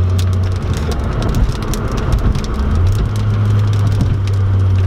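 Turbocharged VR6 engine of a Mk2 Golf, heard inside the cabin as a steady low drone while cruising at low revs in a high gear. The drone breaks up for a couple of seconds near the start and then settles again. A stream of sharp ticks and crackles runs over it.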